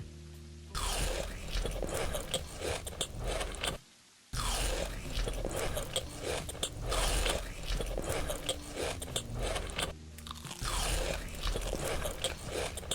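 Close-up crunching and chewing of crisp food, a dense crackle of bites, in three long stretches broken by short pauses about four seconds and ten seconds in.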